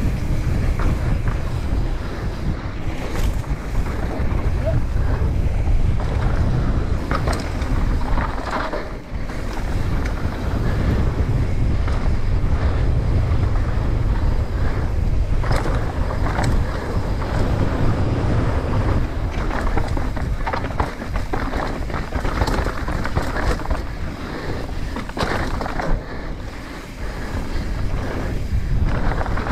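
Wind rushing over an action-camera microphone during a fast downhill run on a Commencal Meta AM 29 mountain bike, with its tyres rolling over dry dirt. Frequent clicks and rattles come from the bike over rough ground.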